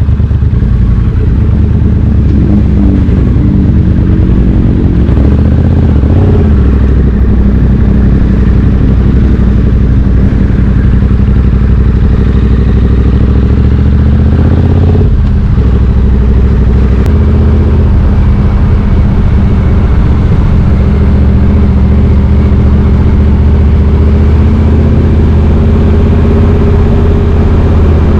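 2020 Triumph Street Twin 900's 900 cc parallel-twin engine running through British Customs slash-cut exhaust tips while riding. It pulls up through the revs a few seconds in, shifts gear about halfway through with a brief dip, then holds a steady cruise.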